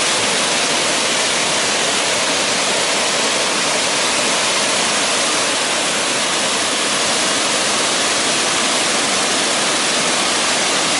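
Waterfall: the steady, loud rush of falling water, unchanging throughout.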